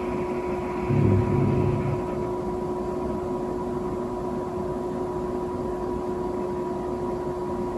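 A steady hum over a constant hiss, holding two unchanging tones, with a brief low mumble about a second in.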